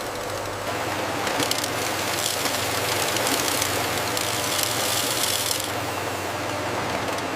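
Steady noise of industrial machinery running, with a low hum underneath. The higher hiss changes abruptly a few times.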